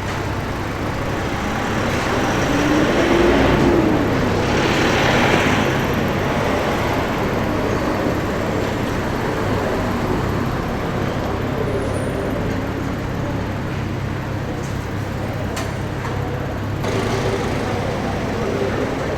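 Road traffic noise: steady engine and tyre noise, swelling as a louder vehicle passes a few seconds in.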